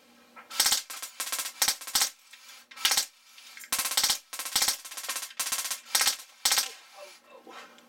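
Drozd Blackbird BB gun with a Sergey full-auto board, running on compressed air from a paintball tank, firing full-auto in about ten short bursts of rapid shots over some six seconds.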